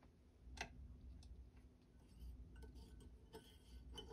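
Faint light clicks and ticks from the bobbin and thread being handled in the Singer 247 sewing machine's metal bobbin case, with one sharper click about half a second in.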